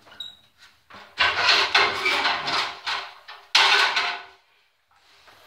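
Bumps and knocks of people play-wrestling on a mat on a garage floor, with two loud, sudden noises: one about a second in that lasts nearly two seconds, and a sharper knock at about three and a half seconds.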